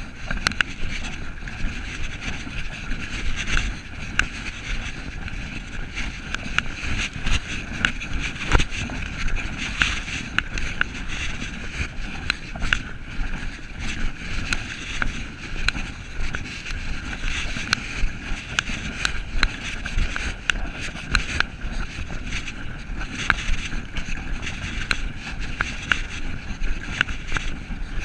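Steady rustling and scuffing with frequent small knocks: footsteps and clothing brushing against a body-worn camera while walking a trail.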